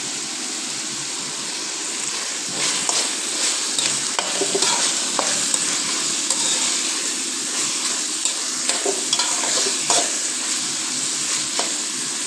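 Diced chicken, onion and chopped tomato sizzling in oil in a metal pan. From about two and a half seconds in, a metal slotted spatula stirs the mix, clicking and scraping against the pan.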